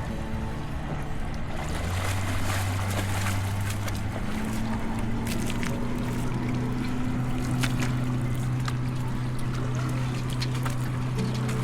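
A boat's motor droning steadily, its pitch rising slightly about four seconds in and then holding, over a noisy wash of surf and wind.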